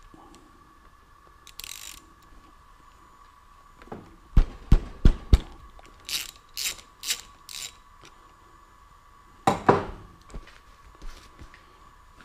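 Metal spark plug tool worked through the plug access hole of a Firman W2100i inverter generator's housing, clicking and knocking. Three sharp knocks come about four seconds in, then a quick run of five short scraping clicks, then another loud knock near the end.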